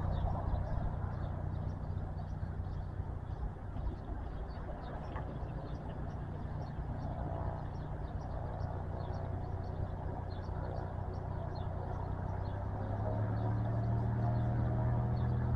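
Cessna Caravan's PT6 turboprop running at taxi power, a steady low drone that grows louder near the end as the aircraft turns.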